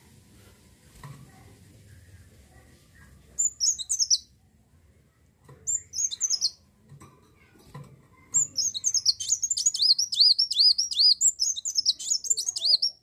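Kolibri wulung, a sunbird, singing in high, rapid twittering notes: two short bursts, then an unbroken stream of quick looping notes from about eight seconds in.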